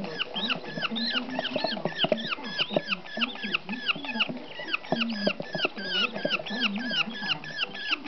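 Budgerigar chicks chirping nonstop, a rapid run of short down-slurred cheeps, several a second, with a few light clicks among them.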